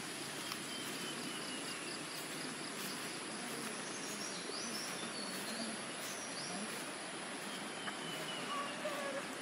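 Outdoor ambience by a forest river: a steady hiss of background noise with faint, scattered bird chirps.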